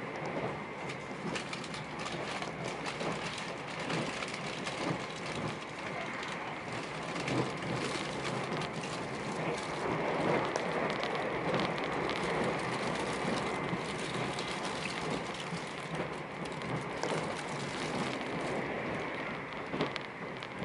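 Meitetsu 2000-series μSky electric train running at speed, heard from inside the car: a steady rolling rumble of wheels on rail, with many small clicks and a faint steady high tone, growing a little louder in the middle.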